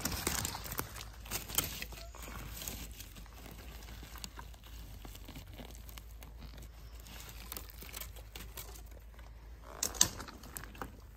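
Rustling and crackling of dry forest-floor litter, with scattered small snaps that are busiest in the first few seconds and a single sharp knock about ten seconds in.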